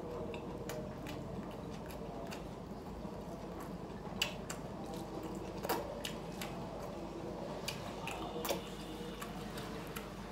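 A person eating rice by hand: chewing and wet mouth sounds, with scattered sharp clicks, the louder ones about four, six and eight seconds in.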